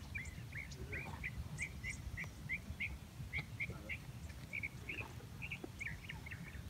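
A bird chirping over and over, short repeated notes at about three a second, over a low steady background rumble.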